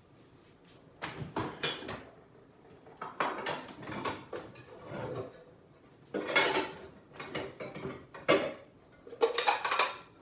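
Bowls and dishes clattering as one is fetched and handled, a string of separate knocks and rattles starting about a second in.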